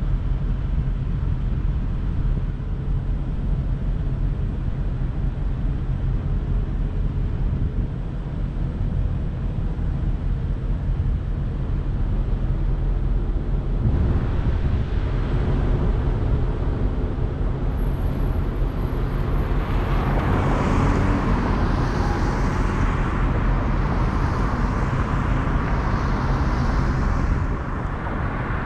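Vehicle engine idling with a steady low hum; about halfway through, the noise of passing traffic swells and stays loud until shortly before the end.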